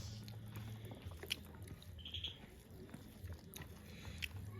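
People chewing and eating food close to the microphone, with scattered small clicks, over a low steady hum.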